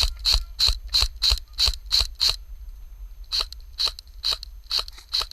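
Airsoft gun firing a rapid string of single shots, each a sharp click, about three a second; it breaks off about two seconds in, then resumes at a slightly slower pace.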